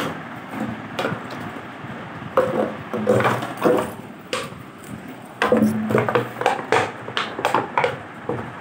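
Plastic bottle knocked about and crinkled by a kitten pawing and pouncing at it: irregular knocks and crackles at uneven intervals.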